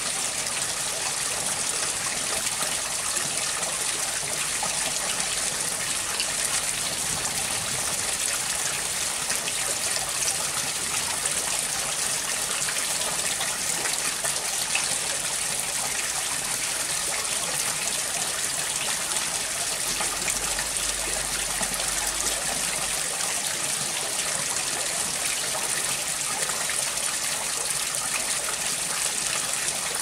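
Running water: a steady, even rush with no breaks or pauses.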